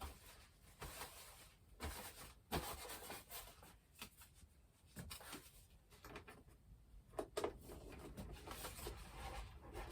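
Handling noise from the RC jet model: foam and plastic parts rubbing and clicking in irregular short knocks as a vertical tail fin is worked into its slot, a fin that does not want to go in.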